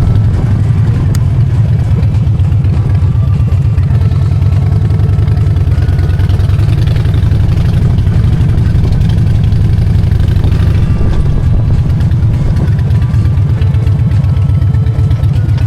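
Harley-Davidson Dyna Street Bob's V-twin engine running steadily with a loud, even low rumble.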